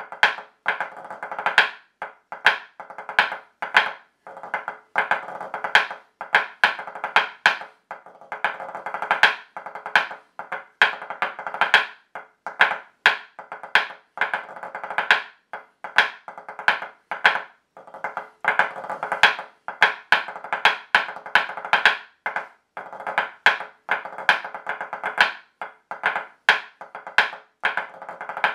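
Snare drum march with rolls played with wooden drumsticks on a practice pad: rapid accented strokes and rolls in a steady march rhythm, stopping right at the end.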